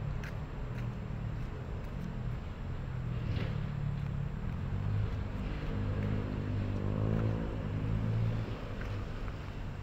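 Steady rumble of city road traffic, with a vehicle passing: its engine note swells about five seconds in and fades again near the end.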